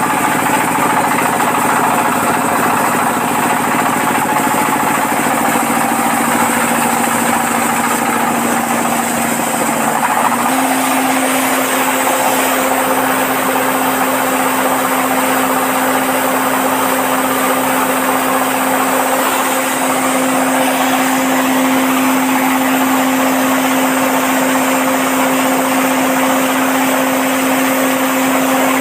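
Corn hammer mill, driven by a small single-cylinder diesel engine, running steadily as it grinds shelled corn into meal. The hum is continuous and loud, and it steps up slightly in pitch about a third of the way through.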